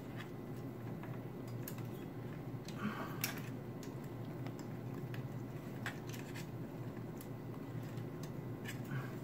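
Scattered small clicks and scrapes of a CPU cooler's retention clip being worked onto the motherboard socket's brackets, over a steady low hum.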